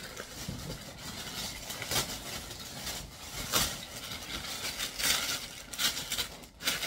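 A fabric backpack being handled: rustling and scraping, with several short, louder bursts of rustle at irregular intervals.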